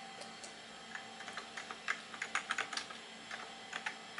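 Typing on a Macintosh SE's keyboard: a quick run of key clicks from about a second in, busiest in the middle and thinning out near the end, over a steady faint hum.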